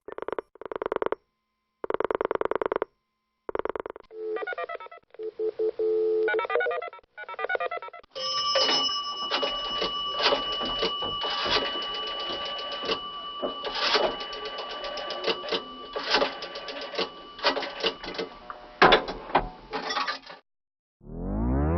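Telephone sound effects: a phone rings in short bursts with gaps. About four seconds in it gives way to electronic line and dialing sounds, and from about eight seconds on to a long run of rapid clicks over steady tones, which stops just before the end.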